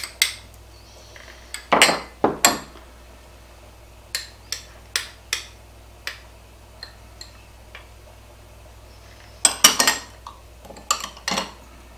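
A metal measuring spoon clinking and tapping against small glass prep bowls as spices are scooped and tapped out, a string of sharp separate clinks. A louder clatter of glass and metal comes near the end as a glass bowl and spoon are set down on the table.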